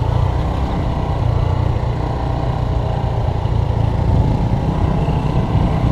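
Motorbike engine running steadily while riding along at an even pace, with a low rumble and no change in pace.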